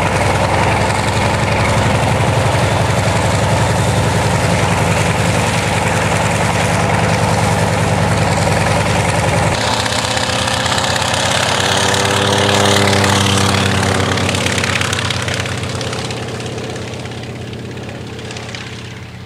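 Antonov An-2 biplane's nine-cylinder radial engine and propeller running. The note changes abruptly about ten seconds in and swells with a gliding pitch a few seconds later. It then fades steadily as the aircraft taxis away.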